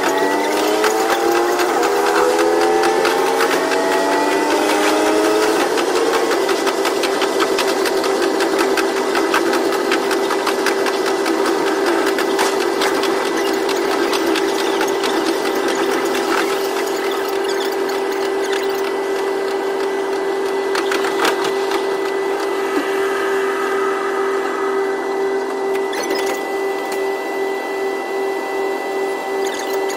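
KiHa 122 series diesel railcar's engine and drive rising in pitch as the train accelerates for the first several seconds, then settling into a steady hum while it runs on, with rapid clicking of the wheels over the track, all sped up to double speed.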